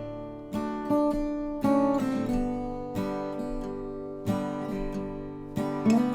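Acoustic guitar music, strummed and plucked chords that ring out and fade between strokes.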